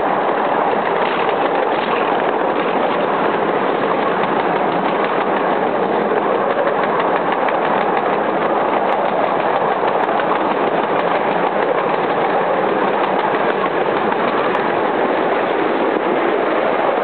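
A 7¼-inch gauge miniature train running along its track, heard from on board as a steady, unbroken rolling rumble of the wheels on the rails.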